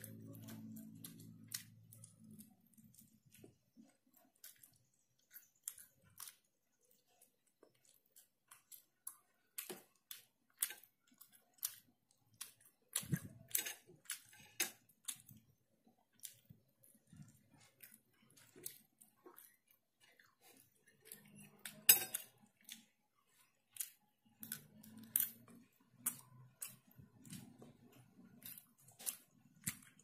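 Close-miked chewing of chicken meat: a run of short wet clicks and smacks from the mouth, with one sharper click about two-thirds of the way through.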